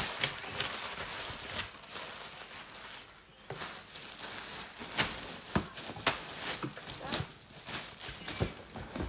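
Plastic packaging rustling and crinkling as wrapped items are handled in a cardboard box, with irregular sharp crackles and taps.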